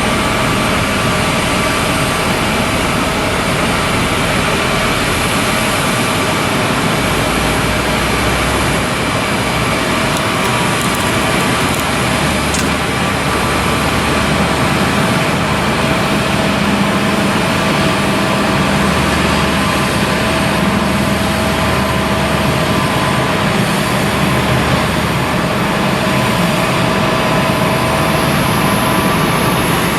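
Boeing 777-300ER's GE90-115B turbofan engines running: a steady loud rush with several steady whining tones over it and a low hum.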